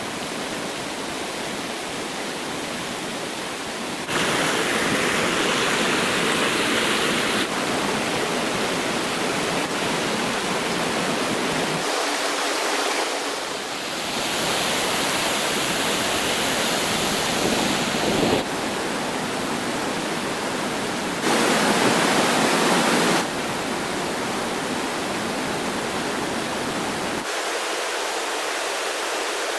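Rushing water of a rainforest stream, a steady hiss and splash that jumps abruptly in loudness and tone several times, as the recording cuts between spots along the water.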